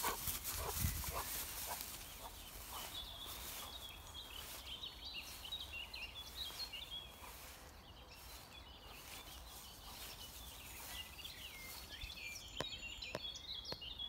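Songbirds chirping and singing in the background, many short quick notes that keep going. During the first couple of seconds long grass rustles as a dog runs through it.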